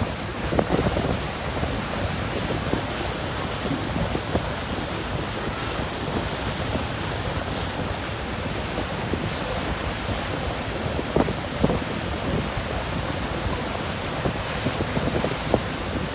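Wind buffeting the microphone on a moving boat over a steady rush of sea water, with a couple of sharper gusts in the second half.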